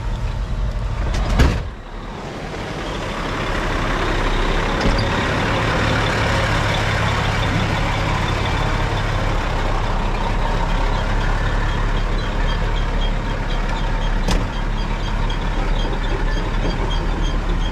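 Truck engine running close by, building up and holding steady, with a short loud burst about a second and a half in. Faint, evenly spaced high beeps come in near the end.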